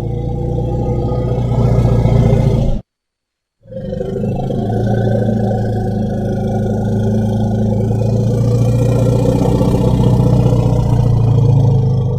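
Dinosaur sound effect: a long, low, rough growl, cut off about three seconds in, then after a brief silence a second, longer low growl held steady.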